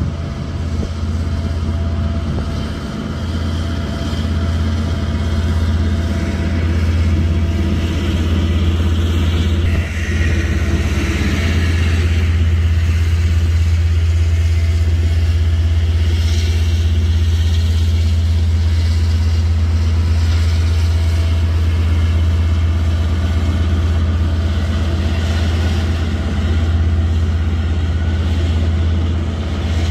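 KiwiRail DL-class diesel-electric locomotive, with its MTU V20 diesel engine, working under power as it pulls a container freight train away from the yard. It makes a loud, steady low engine drone.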